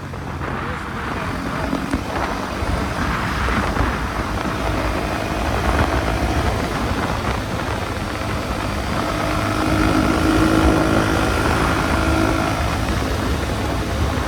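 KTM Duke 250 Gen 3 single-cylinder motorcycle under way, its engine running beneath a steady rush of wind on the microphone. About nine seconds in, a clearer engine tone comes through for a few seconds, then fades.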